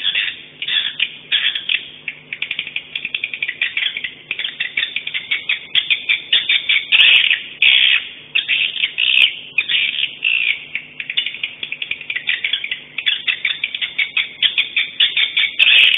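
Swiftlet calls: a fast, chattering run of short high chirps, packed closely together with brief pauses, over a faint steady low hum.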